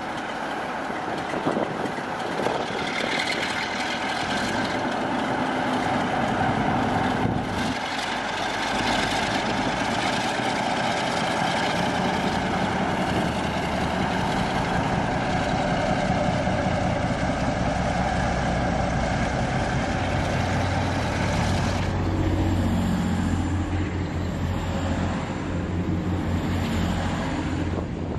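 Class 47 diesel locomotive 47802 pulling away with its coaches, its Sulzer V12 engine running under load, largely covered by another diesel train running close by. A deep, steady hum comes in about three-quarters of the way through.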